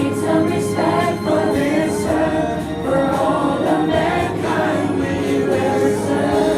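A choir singing a song, several voices together in a sustained melodic line.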